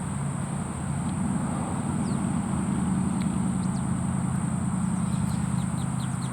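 A motor vehicle's engine running close by, a steady low hum that swells toward the middle and eases near the end.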